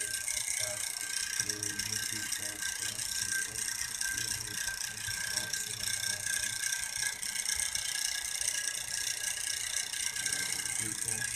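Steady background hiss with several faint high steady tones running through it, and a faint low hum that comes and goes.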